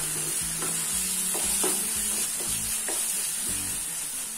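Onion-tomato masala sizzling in a nonstick frying pan while a spatula stirs and scrapes through it in short, repeated strokes about every half second. The puréed tomato is being fried down until its water cooks off and the oil separates.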